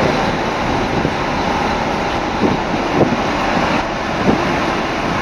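Caterpillar 3406B diesel of a Kenworth W900 truck running, a steady loud din with no breaks.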